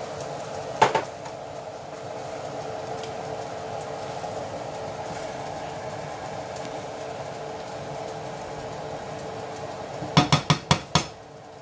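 Orange-juice sauce simmering in a nonstick skillet with a steady bubbling hiss. There is a single click about a second in, and near the end a quick run of about six knocks as the spatula strikes the pan.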